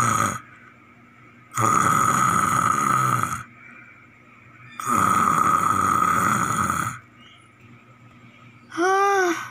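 Snoring in long, drawn-out snores repeating about every three seconds, for a sleeping child. Near the end comes a short voice sound that rises and falls in pitch.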